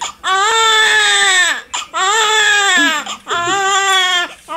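Newborn baby crying: three long wails, each rising and then falling in pitch, with quick breaths between them.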